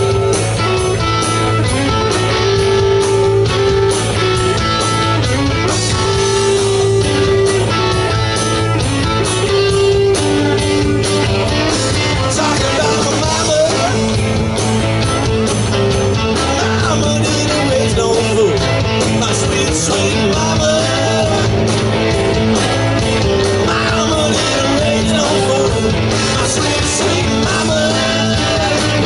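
Live rock band playing an instrumental stretch: electric guitars over bass and drums. Long held notes give way after about twelve seconds to a lead line with bent notes.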